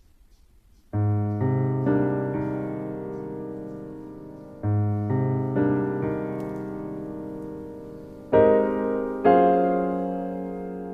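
Background piano music: slow chords struck and left to ring and fade, starting about a second in after near silence.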